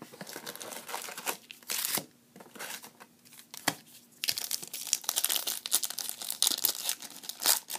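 Foil wrappers of 2010 Bowman Platinum baseball card packs crinkling as the packs are handled and laid out, with a pack torn open in the second half, where the crackling becomes dense and continuous.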